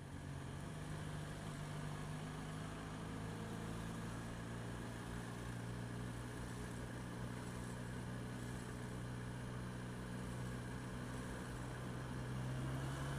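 Yamaha XJ6F motorcycle's inline-four engine running steadily at a constant low pitch.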